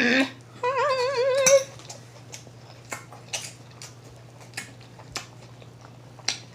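A few sharp clicks and taps of cutlery against a plate, scattered over several seconds while salad is picked up. They follow a short hummed, wavering vocal phrase in the first second and a half.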